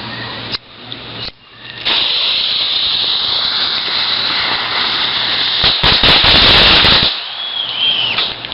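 A lit consumer ground firework spraying with a loud, steady hiss for about five seconds. It ends in a louder burst of crackling, followed by a brief high whistling tone.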